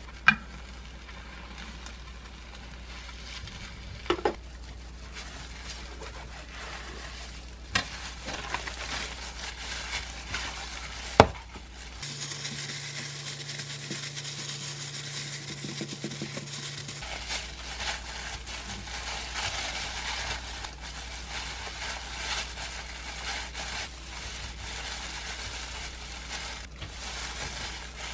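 Egg mixture sizzling as it fries in a square rolled-omelette pan on a gas stove, with a few sharp clicks in the first half.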